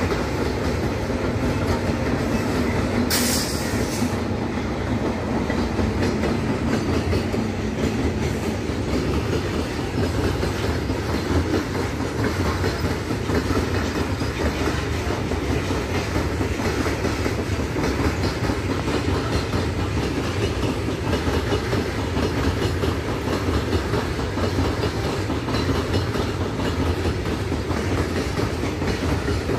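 Long loaded freight train of hopper wagons rolling steadily past, wheels clattering over the rail joints. An electric locomotive in the train goes by at the start, with a low hum fading over the first several seconds and a short hiss about three seconds in.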